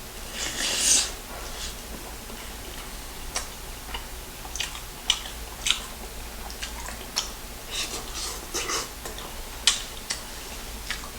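Close-miked eating: a short crunchy burst under a second in, then irregular wet smacks and clicks of chewing.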